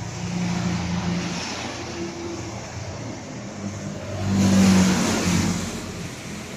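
A motor vehicle's engine going past: a low hum that swells to a loud peak about two-thirds of the way through, then fades.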